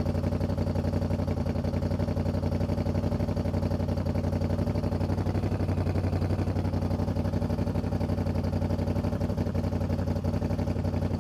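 2017 Moto Guzzi V7 III's air-cooled transverse V-twin idling steadily on a cold engine, with an even pulsing beat.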